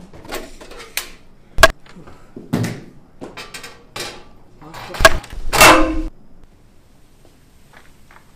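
A series of sharp knocks and clattering bangs, about seven in all, loudest about one and a half seconds in and again around five to six seconds in, then quiet for the last two seconds.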